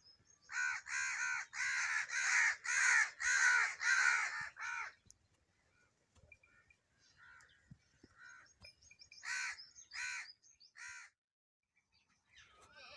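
A bird calling: a quick run of about eight loud, evenly spaced calls, then after a pause some fainter calls and three more spaced calls.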